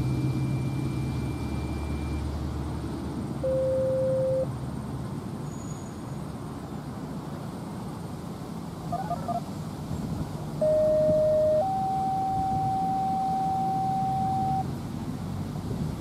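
A vehicle passing in the first couple of seconds, then a few steady electronic tones. Each is held for one to three seconds and then cuts off or jumps to a higher pitch.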